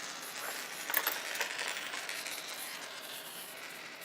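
Two fidget spinners spinning on a tabletop, their ball bearings giving a steady faint whirr, with a few sharp light clicks about a second in.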